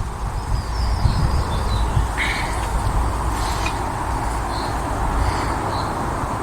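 Woodland birds giving short, high chirps every second or so, over a steady low rumble that is the loudest thing throughout.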